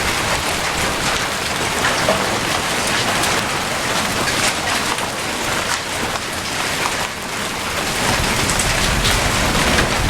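Heavy rain and hail pelting down: a dense, steady hiss studded with many sharp ticks of hailstones striking. A low rumble builds in the last couple of seconds.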